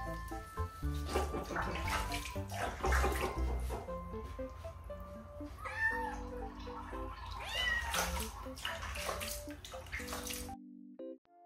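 Wet kitten meowing twice, about halfway through, while being bathed by hand, with splashing and rubbing of wet fur earlier on.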